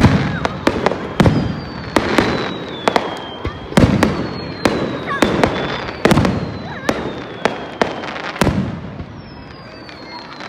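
Fireworks display: aerial shells bursting in quick succession, sharp bangs roughly one a second, each followed by a rumbling tail, with high whistles gliding down in pitch between them. The bangs thin out and grow quieter near the end.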